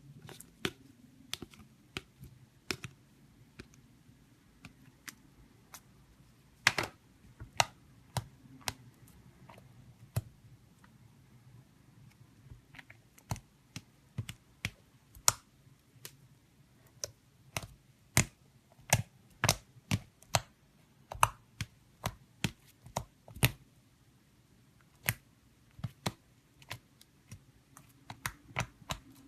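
Slime being squeezed and poked, giving irregular sharp clicks and pops, sparse at first and coming one to three a second in the second half.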